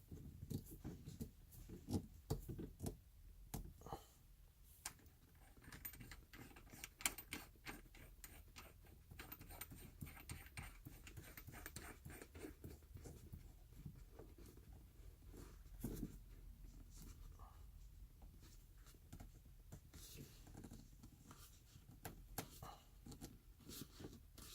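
Faint, irregular clicks and rubbing of hands turning a shift knob onto a car's gear lever, with a few sharper clicks about 2 and 7 seconds in.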